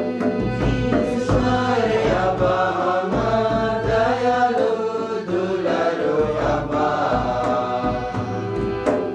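Offertory hymn at Mass: a devotional song sung with instrumental accompaniment.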